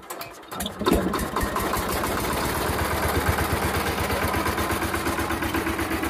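VST Shakti 130 DI power tiller's single-cylinder diesel engine catching on the hand crank about a second in, then running steadily with an even firing beat.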